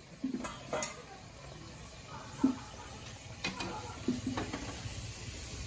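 Okoy (squash and shrimp fritters) sizzling in hot frying oil, a steady hiss, with a few light clinks of a utensil as the fritters are lifted out of the pan.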